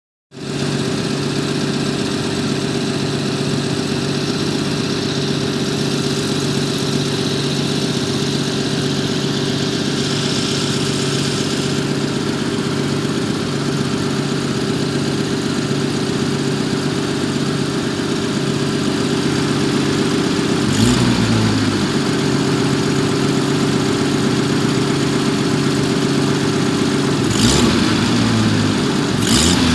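1974 Jaguar XJ12 Series II's V12 engine idling steadily, now running on all cylinders. Brief changes in the engine note come about two-thirds of the way through and again near the end.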